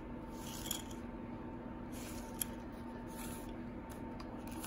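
Faint handling noise of a small camcorder being turned over in the hands: light rustles of plastic and cable, a small click about two and a half seconds in, over a steady faint hum.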